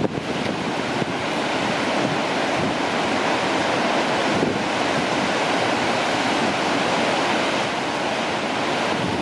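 Gullfoss waterfall on the Hvítá river: a steady rush of heavy falling and churning water.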